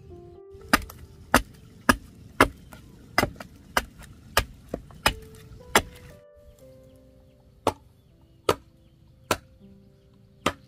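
Sharp chopping strikes on bamboo: a quick run of about ten blows, roughly two a second, then after a break four slower blows about a second apart. Soft instrumental music plays underneath.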